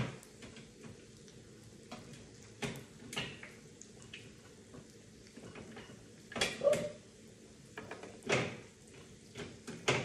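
Knocks, clunks and rattles of containers being moved around on pantry shelves, in separate short strokes, the loudest about six and a half seconds in.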